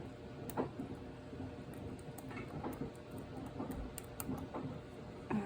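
Faint, scattered metallic ticks and light scrapes of a lock pick and tension wrench working inside a doorknob's pin-tumbler lock.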